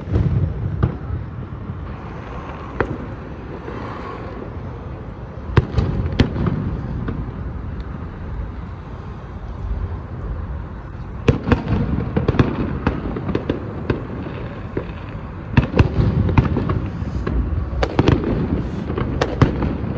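Fireworks going off: a steady low booming rumble with volleys of sharp bangs and crackles, about five seconds in, again from about eleven to thirteen seconds, and from about fifteen seconds almost to the end.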